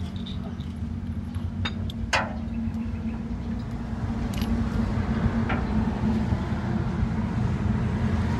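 A steady low drone from an engine or motor running nearby, with a few sharp metallic clinks of hand tools against the engine's valve gear, the loudest about two seconds in.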